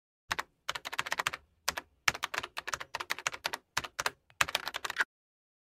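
Keyboard typing sound effect: rapid runs of key clicks with short silent pauses between them, stopping about five seconds in.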